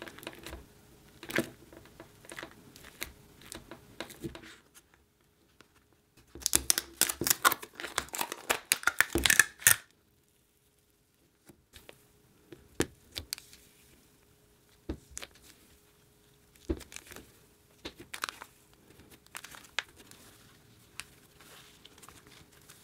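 Hands squeezing and tearing slime, making crackling, tearing and crinkling sounds; the pink slime is old and dried out. The crackling gets louder and denser for a few seconds near the middle, stops briefly, then gives way to scattered clicks and pops as a white slime is pulled and stretched.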